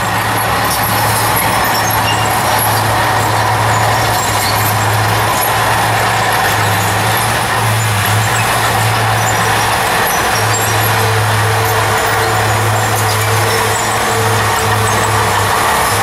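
Small crawler bulldozer's diesel engine running steadily under load as it pushes dirt fill.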